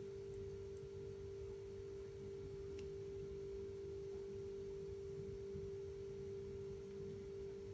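A faint, steady single tone like an electrical hum, unchanging throughout, over a low rumble.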